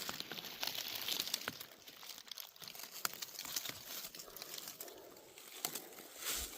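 Dry leaf litter crackling and rustling as it is disturbed, a dense crackle for about the first second, then fainter scattered crunches.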